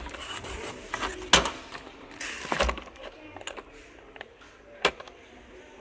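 Packaged bamboo floor mops being handled on a shelf: wooden handles knocking and cardboard packaging rustling, with a sharp knock just over a second in, a rustle around the middle and another sharp knock near the end.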